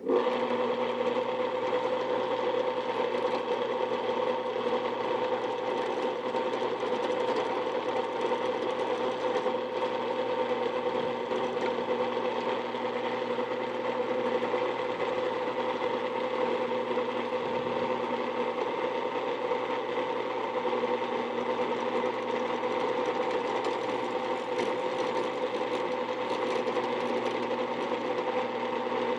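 Small 8-inch tabletop drill press running steadily, a hum with a constant whine of several pitches on top. The whine is the press's worn bearings, which the owner calls crying for new ones.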